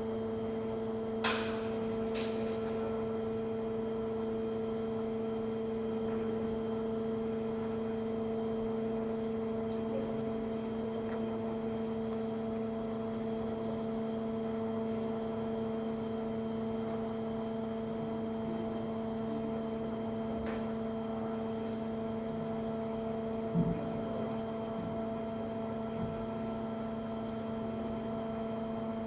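Steady, pitched mechanical hum of the tilt table's hydraulic power unit running, with a few short metallic knocks about a second in and again later.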